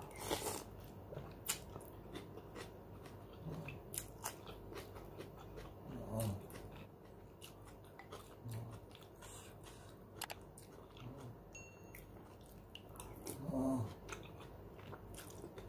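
Close-up eating sounds: chewing with many small wet mouth clicks, and a short slurp of noodles about two seconds before the end. A brief light ring of a metal spoon against the ceramic bowl near the end.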